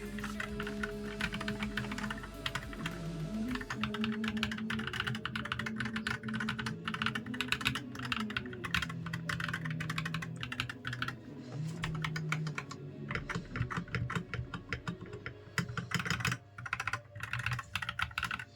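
Typing on an Akko 3061S mechanical keyboard with Cream Yellow V3 Pro linear switches and lubed stabilizers: a fast, continuous clatter of keystrokes, broken by short pauses near the end.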